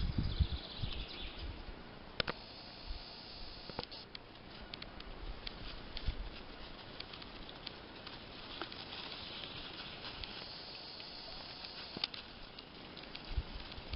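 Spring woodland ambience: scattered small clicks and crackles, as of rustling in dry leaf litter, over a faint high chirring hiss that comes and goes, with some low rumble at the start.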